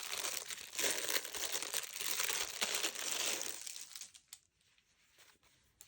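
Crinkling and rustling of handled paper from a junk journal's pages and tucked-in ephemera for about three and a half seconds, then a few faint taps.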